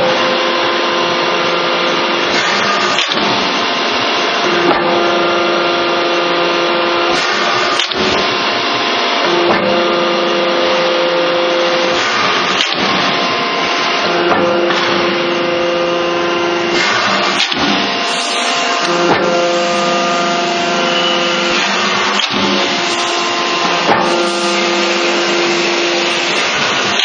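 Hydraulic cutting machine running: a steady loud motor-and-pump noise, with a humming whine that cuts in and out every couple of seconds.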